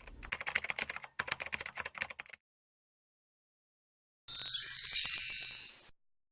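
Quick run of light clicks, like keyboard typing, for about two seconds. A second or so later comes a bright, high shimmering chime that lasts about a second and a half.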